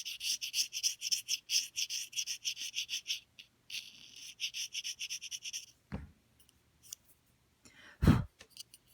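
Reed knife scraping bark off a cane English horn reed blank, in quick short strokes at about four a second, in two runs with a short break between them. Then two dull knocks, the second and louder one near the end.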